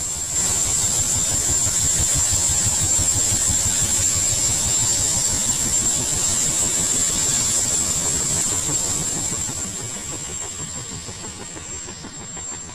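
Sikorsky-Boeing SB-1 Defiant compound helicopter in flight: the rapid chop of its coaxial rotors and pusher propeller under a steady high whine, fading over the last few seconds.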